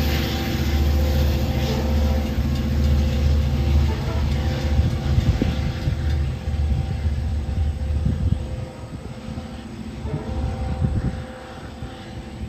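Long Island Rail Road DE30AC diesel-electric locomotive's engine droning steadily as the train pulls away, fading after about eight seconds as it recedes down the line.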